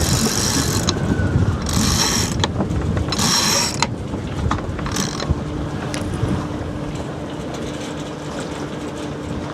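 Yacht sheet winch ratcheting in three bursts as its handle is cranked, then a short final burst, with wind rumbling on the microphone.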